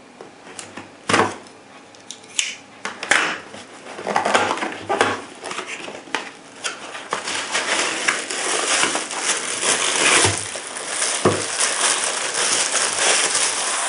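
Cardboard box being opened by hand: a few scattered taps and scrapes of the flaps, then a plastic bag crinkling steadily as the bagged binocular case is pulled out.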